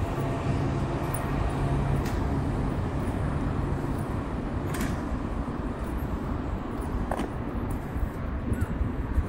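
City street traffic: a vehicle's engine hum that fades out about two seconds in, over steady road noise, with a few light clicks later on.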